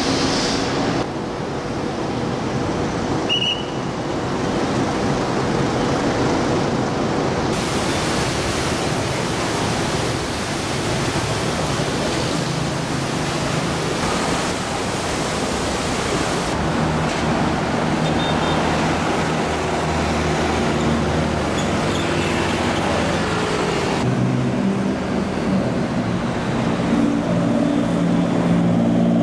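City street traffic noise: a steady rush of passing cars with engine hum, changing abruptly at several edits. Near the end one car's engine comes through more plainly as a steady hum.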